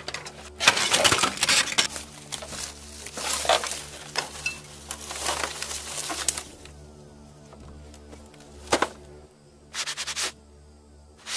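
Cracking, rubbing and rustling as old circuit boards and plastic computer cases are shifted by a gloved hand among leaves and dirt, in busy bursts through the first six seconds and twice more near the end. Steady background music runs underneath.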